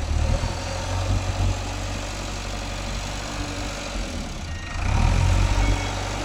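JCB 3DX backhoe loader's diesel engine running steadily as the front loader bucket is worked, growing louder about five seconds in.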